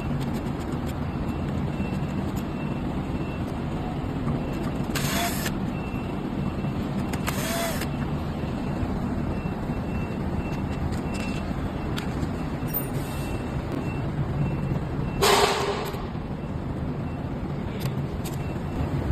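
Steady workshop background hum, broken three times by short bursts of hissing a few seconds apart.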